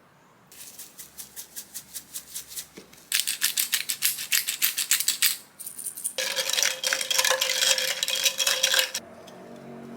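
A utensil beating rapidly in a bowl, a quick rhythmic scraping and clicking that grows louder and faster, with the bowl ringing during the hardest strokes. Then a steady hum takes over about nine seconds in.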